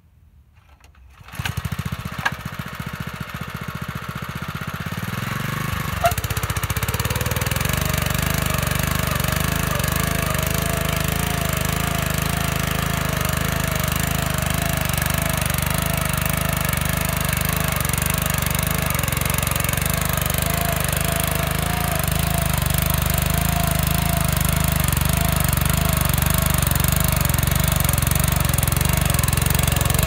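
Honda F410 walk-behind tiller's petrol engine starting about a second in and settling into steady running. It then works under load as its curved ploughing blades dig deep into the soil.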